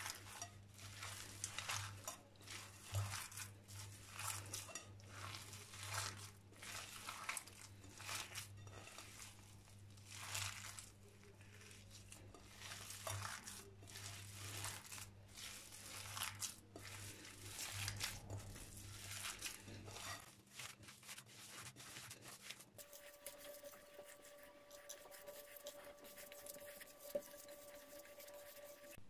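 Hands kneading raw ground-beef köfte mixture in a glass bowl: faint, irregular squishing and slapping of the meat, now and then against the glass. The kneading sounds die away about two-thirds of the way through.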